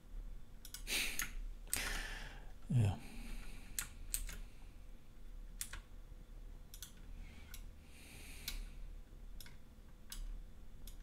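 Scattered computer keyboard keystrokes and mouse clicks, as Blender shortcuts such as Alt+D are pressed. A couple of short swishes come in the first two seconds, and a brief low falling sound, the loudest moment, comes near three seconds in.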